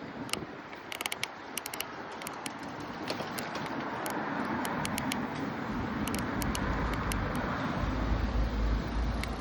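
Wind and road rush from a moving bicycle's microphone, with scattered sharp clicks. From about six seconds in, a deep wind buffeting on the microphone grows loud.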